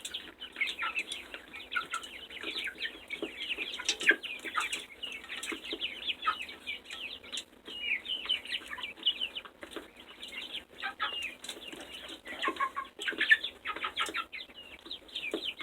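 A flock of young chickens chirping and clucking continuously while they feed, with small pecking clicks.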